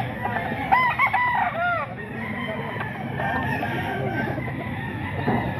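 Gamefowl roosters crowing and clucking, several birds at once. The loudest run of calls comes about a second in, over the steady noise of many birds.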